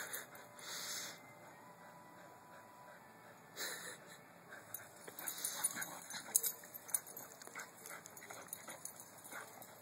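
A Jack Russell terrier and a boxer play-fighting: faint dog whimpers with a few short bursts of noise, and scattered clicks and knocks in the second half.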